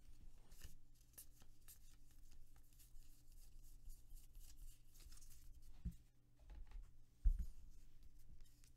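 A stack of Bowman Draft baseball cards being flipped through by hand, the cards sliding and flicking against each other. Two thumps near the end, the second the louder, as cards are set down on the table.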